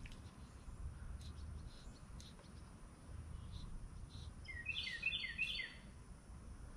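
A bird sings a short phrase of about five quick repeated notes, a little past halfway, over a faint steady low rumble.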